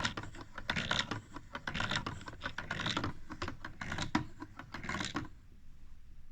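Wooden pin-gear mechanism of a toy automaton running, a rapid irregular clatter of pins, gears and steel rods clicking and knocking, stopping suddenly about five seconds in.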